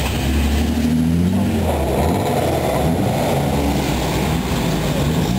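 Classic Alfa Romeo car engines running as the cars drive slowly past one after another. About a second in, one engine revs up in a short rising note, then a second car's engine takes over with a steady, fuller sound.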